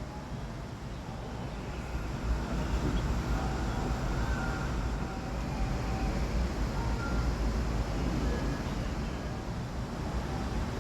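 Steady low rumble of city road traffic, with a few faint short high notes sounding over it now and then.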